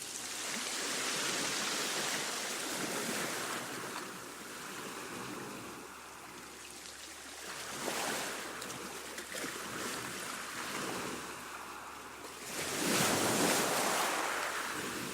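Calm sea wash: gentle waves washing in and drawing back, a steady hiss of water that swells three times, the last swell the loudest.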